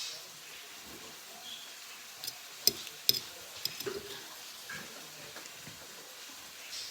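Eating at the table: a quick run of sharp clicks and taps, like a utensil against a dish, about two to four seconds in, with softer small sounds around them.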